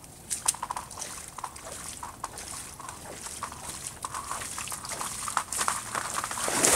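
Boots sloshing and crunching through icy shallow water and thin ice at the edge of a frozen pond, with many small sharp crackles. A louder sloshing step comes near the end.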